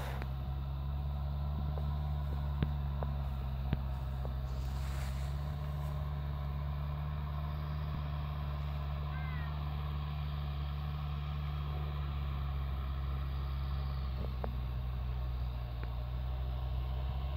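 A steady, low mechanical drone, like distant machinery running without change, with a few faint clicks.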